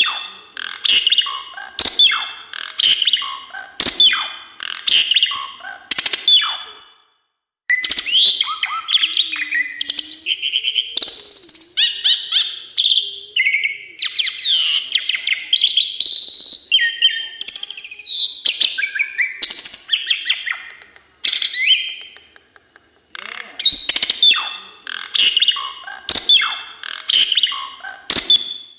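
Asian pied starling (jalak suren) singing a long, varied song of whistles and chattering with mimicked fill phrases. The song comes in runs broken by short pauses about 7 and 22 seconds in.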